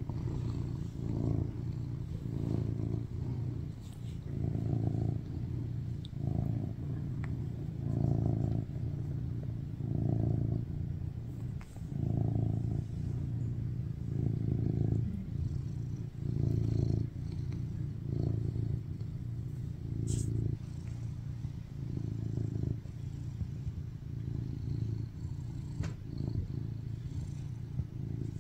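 Tuxedo cat purring steadily, close up, the purr swelling and easing with each breath about every two seconds.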